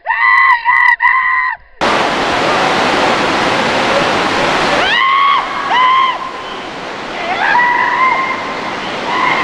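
A bungee jumper screaming high and loud at the leap, then wind rushing hard over the microphone during the fall from about two seconds in, with more screams partway through.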